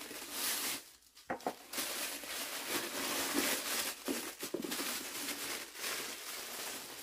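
Packaging crinkling and rustling in the hands as a new handbag is unwrapped. There is a brief lull with a few clicks about a second in.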